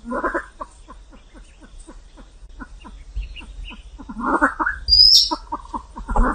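Silver pheasants calling: a rapid run of short clucks, about five a second, broken by louder harsh calls at the start, about four seconds in and near the end, and a brief high squeal about five seconds in.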